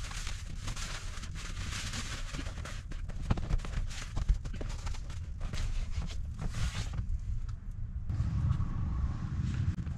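Reflective bubble-foil windshield sunshade crinkling and crackling as it is unfolded and pressed against the inside of the glass, with a couple of sharper knocks. The crinkling stops about seven seconds in, leaving a low rumble.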